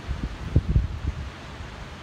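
Wind buffeting the microphone in irregular low gusts, easing a little past the middle, over a steady faint hiss of surf.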